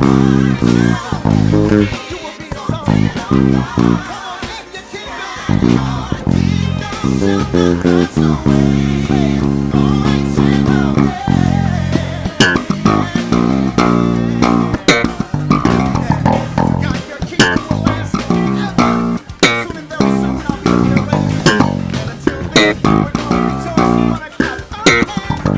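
ESP LTD B-155DX five-string electric bass playing a busy, funky gospel groove of short plucked notes, with a few longer held notes in the middle, over the full band recording of the song.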